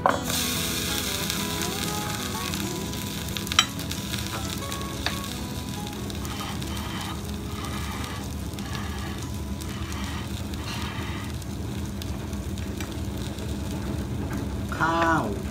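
Hot butter and beef from the frying pan sizzling, loudest at the start and settling into a steady hiss. Metal tongs click against the plate twice, and a short pitched chirp sounds near the end.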